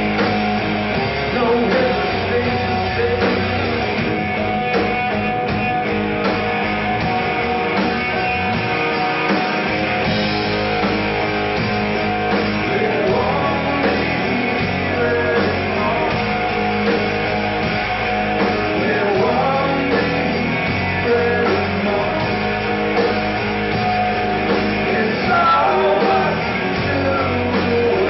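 Live rock band playing: electric guitars, bass guitar and drum kit in full, steady flow.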